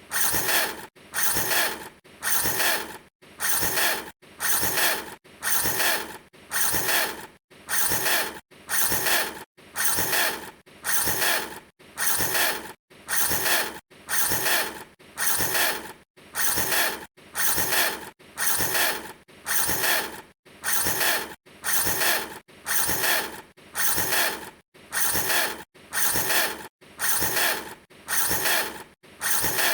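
A mechanical revving sound, repeated about once a second with machine-like regularity. Each rev builds in loudness and cuts off sharply before the next.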